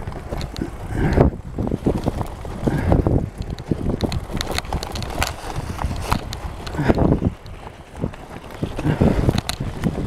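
Mountain bike rattling and clattering down a rough forest trail, with irregular sharp knocks as it runs over stones and roots, tyres on loose leaves and dirt, and wind buffeting the microphone.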